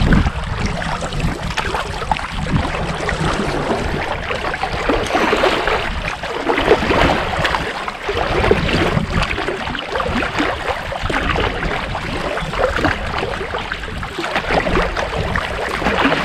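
River water washing and splashing against a small paddled boat as it is paddled upstream. A steady rushing wash with irregular splashes.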